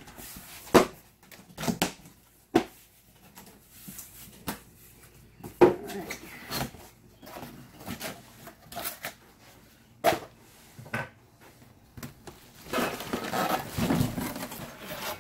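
A cardboard shipping box being opened and unpacked by hand: flaps and packaging rustling and scraping, broken by several sharp knocks. Near the end comes a longer stretch of cardboard scraping and rustling as an inner box is dragged out.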